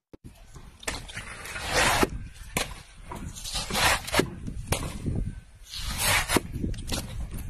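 Repeated rough rubbing or scraping strokes, one about every two seconds, with sharp clicks between them.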